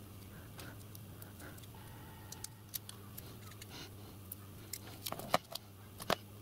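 Small pieces of thin brass plate being handled and pressed together with double-sided tape: scattered light clicks and taps, with a quick cluster of louder clicks about five seconds in, over a low steady hum.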